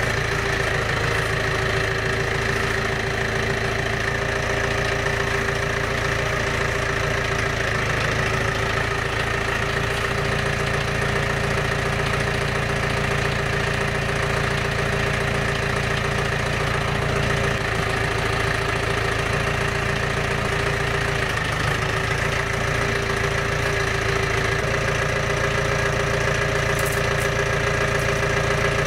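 Tractor engine idling steadily at an even pitch, with no revving.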